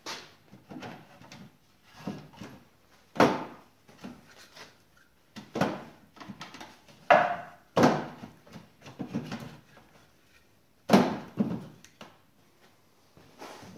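Wooden parts of an adjustable sawbuck knocking and scraping as its movable uprights are slid along the frame and a piece of wood is set in the cradle: irregular wooden knocks and clunks with sliding scrapes between, a few of them sharp and loud.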